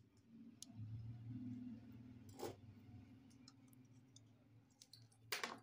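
Faint low hum with a few small metal clicks from soldering work on an amplifier's circuit board, the loudest clicks near the end as tweezers work among the components.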